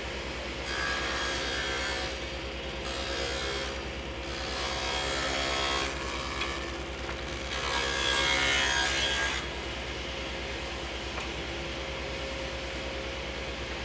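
Table saw running while a board is pushed over the blade in repeated passes, widening a shallow groove a little at a time with a standard blade. Several louder stretches of cutting come in the first nine seconds or so, then the saw runs on without cutting.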